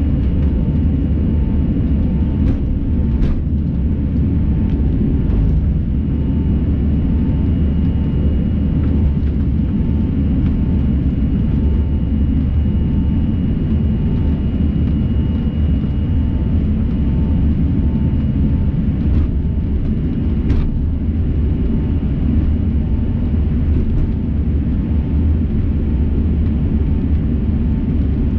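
Jet airliner heard from inside the cabin while taxiing: a steady low rumble with a steady high engine whine, and a few light clicks.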